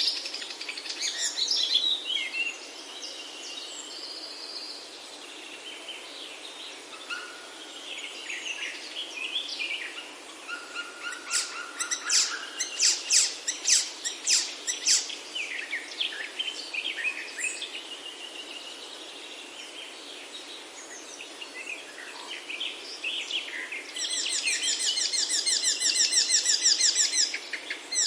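Several birds singing and calling, with overlapping chirps and short whistled phrases over a steady background hiss. About four seconds before the end a fast, dense trill starts up.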